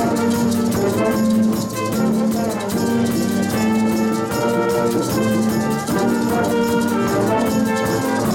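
A middle school jazz band playing: saxophones and brass sounding held and moving notes together, with a drum kit keeping a steady beat on the cymbals.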